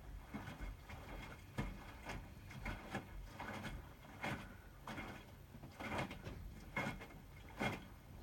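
Hotpoint WMFUG 942 front-loading washing machine tumbling a load in the wash. Laundry falls in the drum with a swish and thud, about once every half second to a second.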